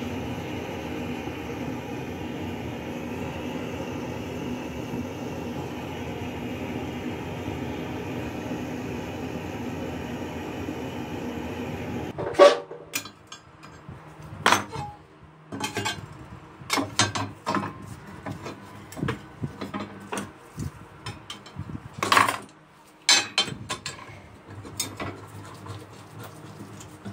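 Gas torch flame running steadily, heating the steel trowel blade, then cutting off about twelve seconds in. Then irregular sharp metal clanks and knocks as the blade and steel plates are handled and clamped together to flatten it; the loudest comes just after the flame stops.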